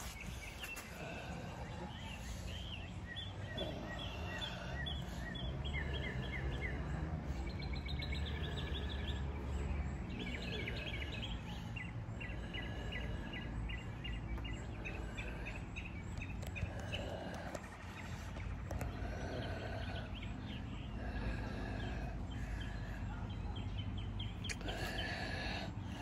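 Songbirds singing in repeated series of quick chirps, over a steady low rumble.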